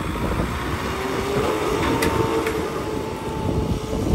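Small fire truck driving slowly past, its engine running steadily, the engine note rising slightly about a second in and then holding.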